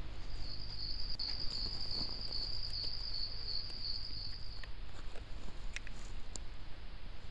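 A night insect trilling: a high, fast-pulsing trill that stops about four and a half seconds in, over a steady low hum and hiss. A few faint clicks follow near the end.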